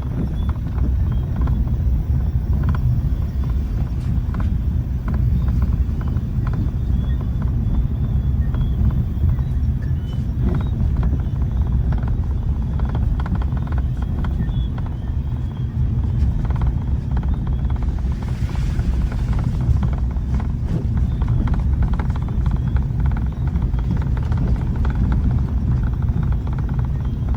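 Vehicle engine running steadily at low speed, a continuous low rumble, with faint scattered clicks over it.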